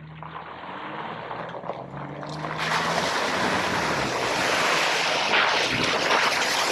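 An off-road vehicle's engine running as it pushes into a water hole, then a loud rush of splashing water from about two and a half seconds in as the tyres throw water.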